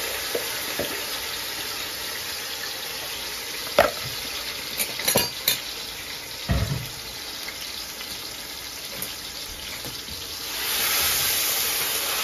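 Seasoned chicken pieces frying in hot oil in an aluminium pot, a steady sizzle. A few knocks and clatters come about four to seven seconds in, and the sizzle grows louder near the end as the chicken is stirred.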